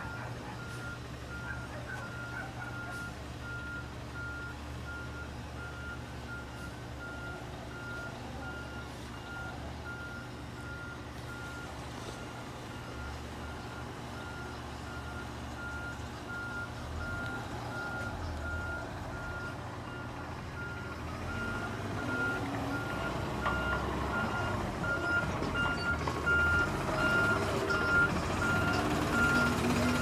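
Garbage truck's backup alarm beeping steadily about once a second, over the low running of its natural-gas engine. The engine grows louder over the second half as the truck comes closer.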